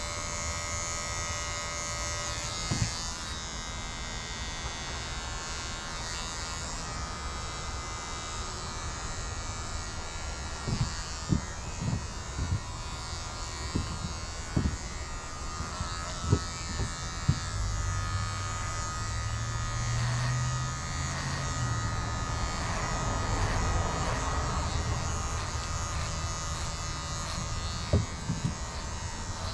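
Electric hair clippers running with a steady buzz while cutting a man's hair, with a scatter of short knocks in the middle and near the end.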